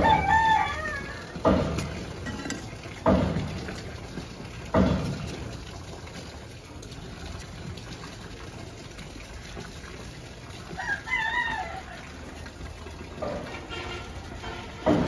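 A chicken calling twice, a short wavering call at the start and another about eleven seconds in. Three dull thumps in the first five seconds, with soft scraping, come from a hand digging into loose potting soil.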